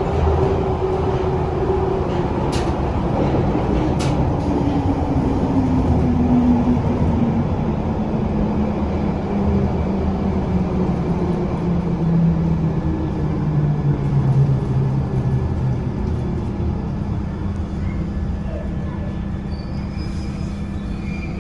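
London Underground Bakerloo line train slowing down: the motor whine falls steadily in pitch over about fifteen seconds above a steady rumble of wheels on rail, with two sharp clicks a few seconds in.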